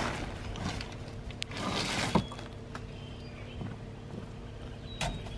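Plastic tarp rustling as it is pulled back off stacked split firewood, with a sharp knock of wood on wood about two seconds in and footsteps on leaf litter. A faint steady hum runs underneath.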